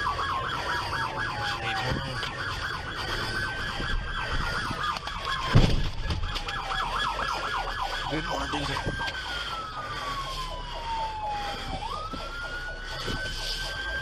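Police car sirens sounding together: a slow wail that falls and then jumps back up every two seconds or so, with a fast yelp warbling alongside it. A single heavy thump comes about five and a half seconds in.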